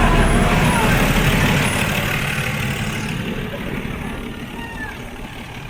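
Diesel-hauled Nilgiri Mountain Railway toy train running, a dense rumble and rattle that fades steadily. Its higher hiss drops away about three seconds in.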